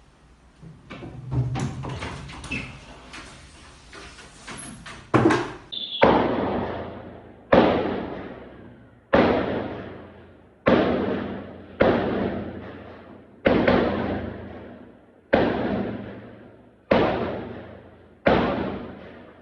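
Irregular clattering and knocks, then a steady series of nine loud slams or bangs about one and a half seconds apart, each ringing out and fading before the next.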